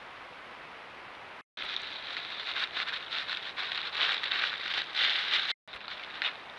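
Trail camera recording: a faint steady hiss, then after a cut a loud, dense crackling rustle, as of dry leaf litter being disturbed, which drops to a lighter crackle after another cut near the end.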